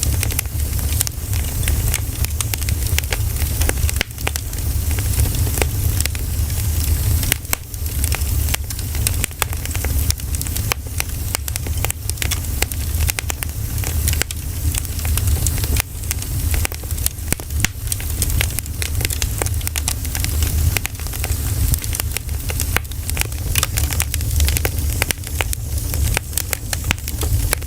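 Campfire of pine cones burning, crackling with many irregular sharp pops over a steady low rumble.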